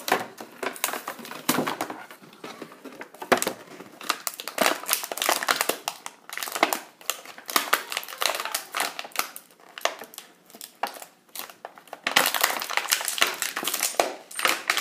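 Clear plastic packaging being crinkled and crumpled by hand as an action figure is taken out of it, an irregular crackling that gets busier near the end.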